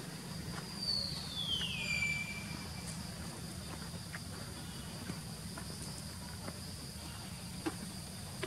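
Steady high-pitched insect drone, with a single whistled call sliding down in pitch over about a second and a half near the start, and a few faint ticks later on.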